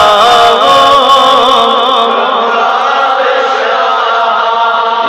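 A man chanting a devotional poem in long, wavering held notes, his voice amplified through microphones.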